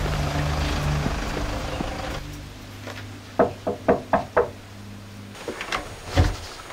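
Five quick knocks on a wooden front door, followed about six seconds in by a few clicks and a heavier thud from the door. Background music fades out before the knocking.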